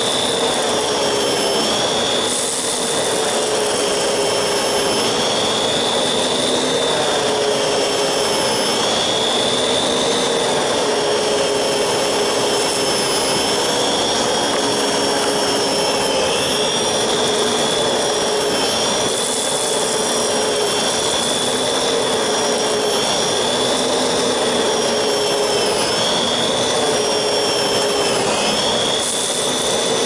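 Lindhaus Aria Elite canister vacuum running with its electric power head while picking up debris from carpet. It makes a steady, loud whine with a high tone that wavers slightly.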